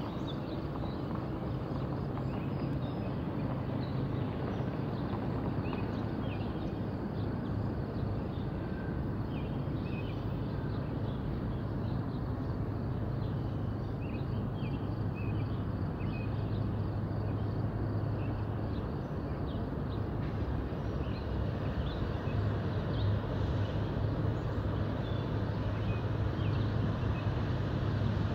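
Distant diesel locomotives of a Norfolk Southern freight train droning with a steady low hum that grows slowly louder as the train approaches. Short bird chirps sound over it.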